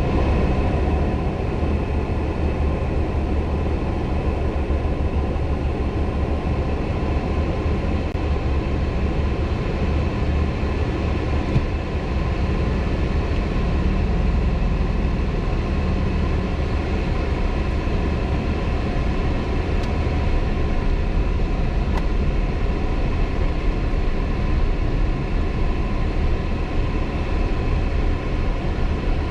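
A vehicle driving along: a steady low rumble of engine and travel noise that holds level throughout, with a few faint clicks.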